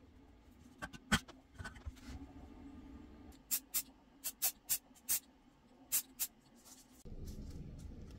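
Small handwork on a bench: a few light clicks, then about eight short scratchy strokes, several in quick pairs. A low steady hum comes in near the end.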